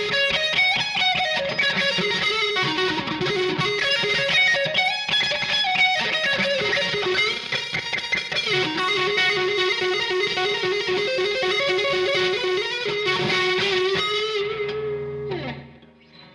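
Epiphone 1967 Flying V electric guitar played with distortion: fast single-note lead runs, then a long held note with vibrato. Near the end the note slides down in pitch and the sound drops away.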